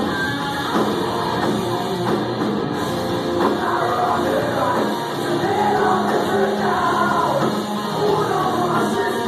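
Live rock band playing loud, with a singing voice over distorted guitars and drums, recorded on a phone microphone.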